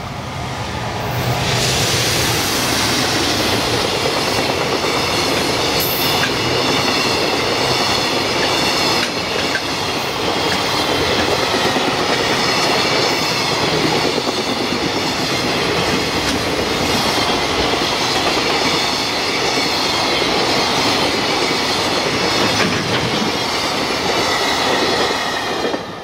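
JR Freight EF210 electric locomotive and its long train of container wagons passing close by: a loud, steady rolling noise with a high ringing tone from the wheels over it. It builds over the first two seconds as the locomotive arrives and drops sharply near the end as the last wagon passes.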